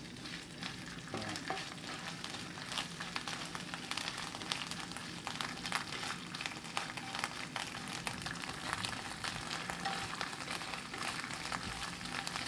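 Garlic and shrimp paste (bagoong) sizzling in hot oil in a nonstick frying pan, with steady fine crackling, while a spatula stirs and scrapes through it.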